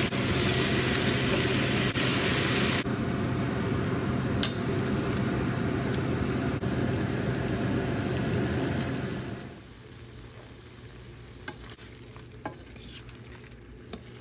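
Whole shell-on shrimp frying with minced garlic in a stainless steel skillet, a steady sizzle. About nine seconds in the sizzle drops to a much quieter hiss with a few light clicks.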